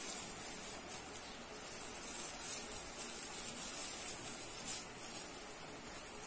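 Green metallic tinsel garland of a wreath rustling as it is handled and turned in the hands, a high papery rustle that swells several times.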